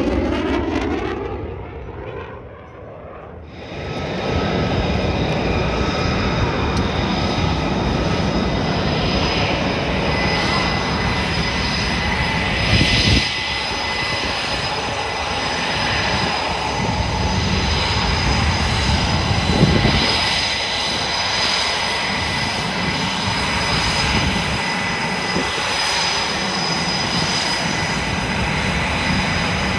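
Jet fighter engines: near the start a passing F/A-18 Super Hornet's sound falls in pitch and fades. From about four seconds in, the twin turbofans of a two-seat F/A-18F Super Hornet run steadily at taxi power with a constant high whine.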